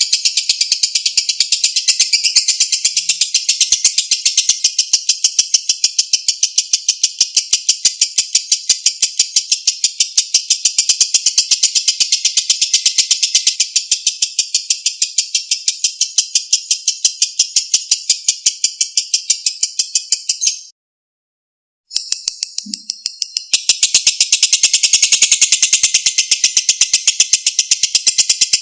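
Lovebird's ngekek: a long, rapid, high-pitched chattering trill. It breaks off for about a second roughly 21 seconds in, then resumes.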